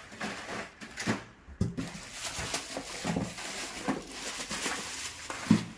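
Cardboard firecracker boxes being handled and shifted: continuous rustling and scraping with frequent light clicks and a few sharper knocks, the loudest near the end.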